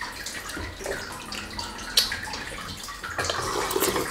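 Eating sounds at a table: chopsticks clicking against bowls, one sharp click about halfway through, with wet chewing, and slurping from a soup bowl near the end.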